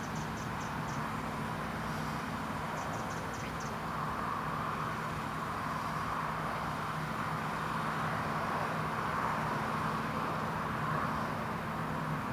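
John Deere T560 combine harvester running steadily while harvesting barley: a constant engine hum with a broad rushing noise of the machine's working parts over it. Faint short high ticks come in at the start and again about three seconds in.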